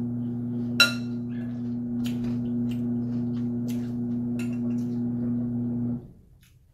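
Steady low electric hum, like a motor or compressor running, that cuts off suddenly about six seconds in. Over it, a metal spoon clinks against a glass cereal bowl several times, once sharply about a second in.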